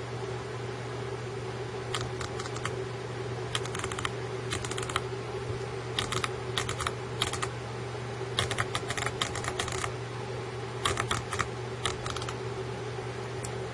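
Elevation turret of a Schmidt and Bender PMII 3-27x56 scope (MTC LT turret, 'More Tactile Clicks') being dialed by hand: crisp detent clicks in five quick runs with short pauses between, over a steady low hum.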